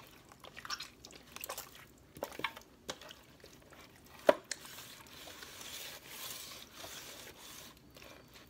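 Hands working turmeric marinade into a raw whole chicken: wet squishing and small clicks, a sharp knock about four seconds in, then a few seconds of soft hissing.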